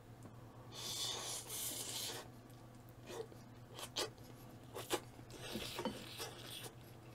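Quiet eating sounds: a brief scraping rub about a second in, then a few soft clicks of utensils on a dish.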